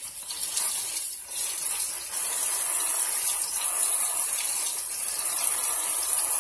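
Kitchen tap water running into a sink while mung bean sprouts are rinsed in a plastic colander to wash off their loose hulls. The flow is steady, a little louder from about two seconds in.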